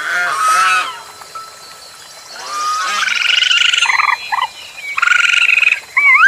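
A string of animal calls: pitched calls in the first second, then pulsed trills and short rising chirps through the rest.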